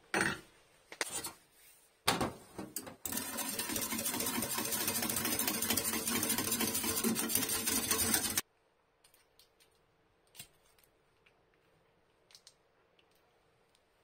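Small wire whisk beating oil fast in a stainless steel cup to emulsify a dressing: a quick, even metallic rattle lasting about five seconds that stops abruptly. It is preceded by a few clicks of metal on metal.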